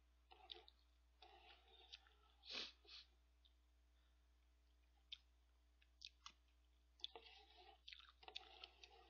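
Faint eating sounds: a spoon clicking and scraping in a cup of ramen and rice, with chewing and mouth sounds, in short scattered bursts over a low steady hum.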